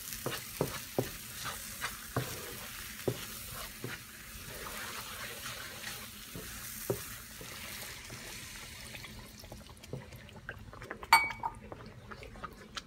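Wooden spatula stirring a thick masala paste in a nonstick frying pan: sizzling, with repeated light knocks of the spatula against the pan. The sizzle dies down after about nine seconds as the added water thins the masala into gravy, and there is one sharper clink near the end.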